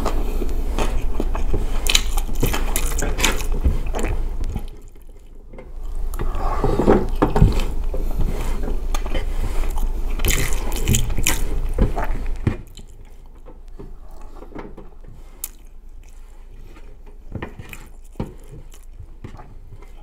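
Close-miked chewing and wet mouth sounds of a person eating spiced rice, mixed with fingers scraping and pinching grains off a metal baking tray. There is a brief lull about five seconds in, and after about twelve seconds it drops to a few scattered clicks.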